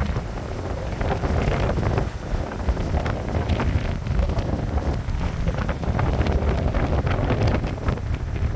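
Strong storm wind buffeting the microphone in uneven gusts, over the rush of heavy surf breaking and churning across rocks.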